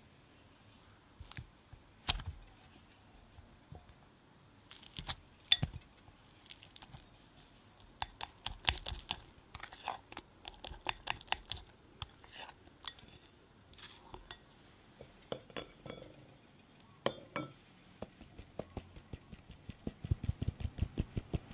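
A metal fork clinks and scrapes against a glass mixing bowl while mashing ripe bananas, in irregular sharp clinks. Near the end this gives way to a rapid, even tapping, about four taps a second, as a mesh sieve of flour is tapped over a glass bowl.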